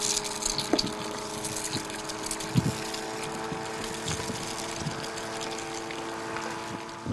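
Eggs poured into hot oil in a non-stick frying pan, sizzling steadily, loudest right as they hit the pan. A silicone spatula stirs them, with a few soft scrapes, over a steady hum.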